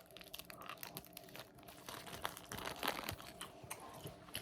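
Plastic wrapper of a Fruit Roll-Up crinkling as the roll-up is unwrapped and peeled from it: irregular soft crackles, a little louder around the middle.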